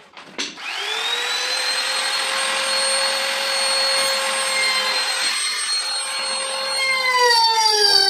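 Handheld trim router switched on about half a second in: it spins up to a steady high whine, then its pitch dips and wavers near the end as the bit cuts into the cabinet panel to rout a groove for a drawer lock.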